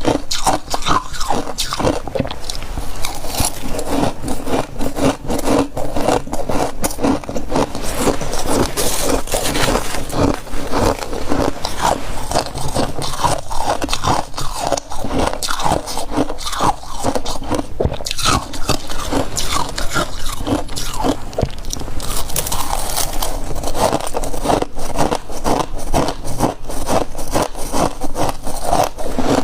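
Close-miked biting and chewing of a mouthful of soft freezer frost: a dense, continuous crunching made of many crisp crackles.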